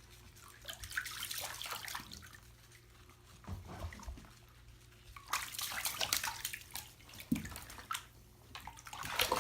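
Water splashing in several irregular bursts over a steady low hum.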